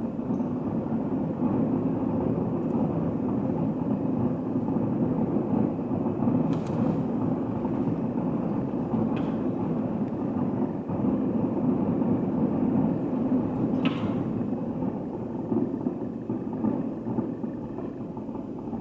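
Distant fireworks barrage: many shell bursts blending into a steady rumble, with a few sharper cracks about six and a half and fourteen seconds in.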